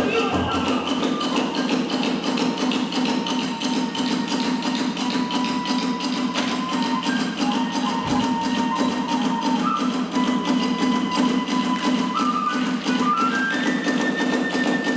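Kagura hayashi music: a bamboo flute playing a melody of held, stepping notes over fast, unbroken drumming and hand cymbals.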